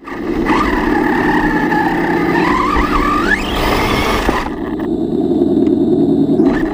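Arrma Kraton 6S RC truck driving, heard from its onboard camera: a steady rough engine-like drone from its added sound kit, with a whine that rises in pitch about three seconds in as it speeds up. The whine drops away about four and a half seconds in while the drone carries on.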